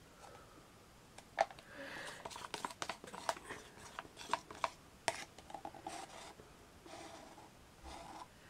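Wooden stir stick scraping and tapping inside a clear plastic cup, working out the last of the resin: a faint run of short clicks and scrapes.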